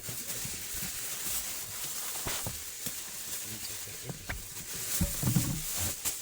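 Rustling and light knocks of belongings being handled and put away, over a steady hiss, with a brief louder low rumble about five seconds in.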